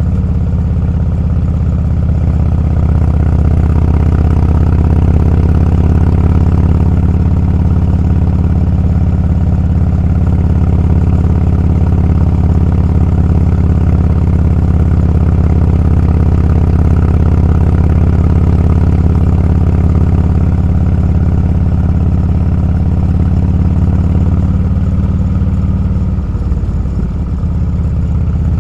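Motorcycle engine running steadily under way. The engine sound eases briefly near the end, then picks back up.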